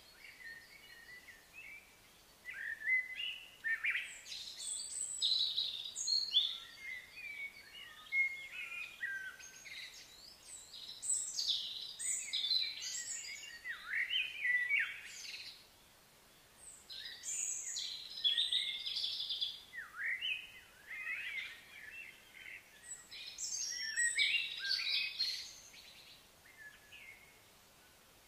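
Birds singing and chirping, several short whistled calls often overlapping, in bouts separated by brief quieter spells.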